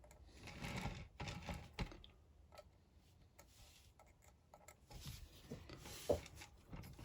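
Faint light clicks and soft scraping of small metal pieces being handled on a rotating grid soldering board, scattered and irregular.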